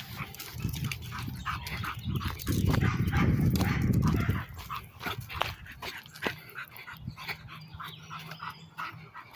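Pit bull on a leash pulling ahead on pavement, making short breathy dog sounds, with many small clicks and scrapes. A loud low rumble runs from about two and a half to four and a half seconds in.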